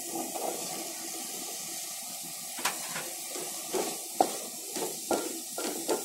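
Wooden spatula scraping and knocking against a metal cooking pot as green peas are stirred into a simmering masala, over a steady hiss. The knocks come irregularly from about halfway through, the sharpest a little past the middle.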